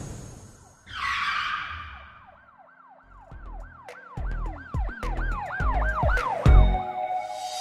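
Intro sound effects: a whoosh about a second in, then a siren-like wail rising and falling about three times a second over deep bass thumps that grow louder toward the end.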